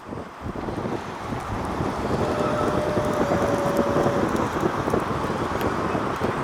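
Strong thunderstorm winds rushing and buffeting the microphone, building over the first two seconds and then staying loud. A brief steady tone sounds for about two seconds in the middle.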